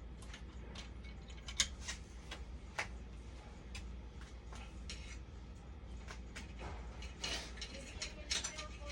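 Irregular light clicks and clacks of small tools and parts being handled during an electronics repair, with a few sharper clicks, over a steady low hum.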